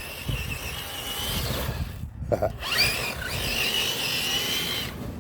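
Electric motor and two-speed transmission of a TRX-4 RC crawler truck whining at speed on a 3S battery, in two runs: the pitch rises quickly, then holds high and steady, with a short break about two seconds in as the throttle is let off.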